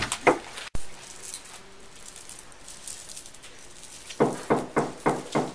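Fist knocking on a door: a couple of knocks at the start, then a stretch with only faint room tone, then a quick run of about six knocks, some four a second, near the end.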